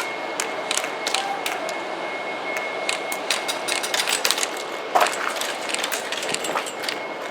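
Airsoft gunfire during a game: scattered sharp cracks and clicks at an irregular pace, with a louder crack about five seconds in, over a steady hiss.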